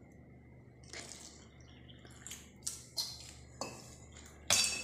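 Stainless-steel cup and whisk clinking against a steel pot several times while water is poured from the cup into a dry flour-and-semolina mix. Near the end comes the loudest clink, a sharp metal strike that leaves a short ringing tone.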